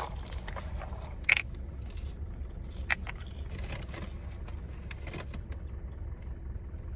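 A large plastic apple juice jug handled and drunk from: a few sharp clicks and crackles of the plastic, the loudest about a second in and another about three seconds in. Beneath them, a steady low rumble inside the car.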